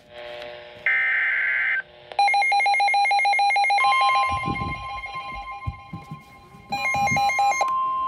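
A NOAA Weather Radio emergency alert: a harsh warbling burst of SAME digital header tones, then the weather radios' rapid pulsing alarm beeps, then the long steady warning alert tone. The pulsing beeps come back briefly about seven seconds in.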